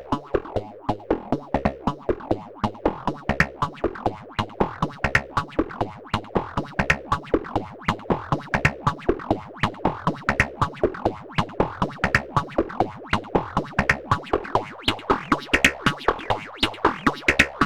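Eurorack synthesizer patch played through the SetonixSynth Marsupial analog filter: a fast sequence of short, plucked notes, about four or five a second, over a repeating bass pattern. An envelope opens and closes the filter and the level on each note, with no effects added.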